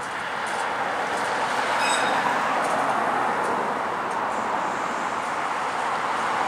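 A Canadian Light Rail Vehicle (CLRV) streetcar rolling on curved track as it approaches, a steady rumble of wheels on rail that grows louder over the first two seconds. Faint high tones come in briefly about two seconds in.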